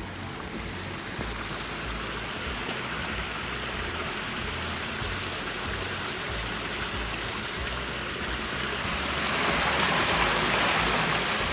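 Heavy rain with rushing stormwater runoff, a steady hiss of water that swells louder near the end.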